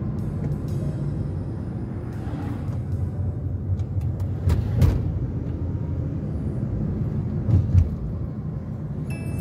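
Road noise of a car being driven, heard from inside the cabin: a steady low rumble from tyres and engine, with a few heavier thumps about halfway through and again later.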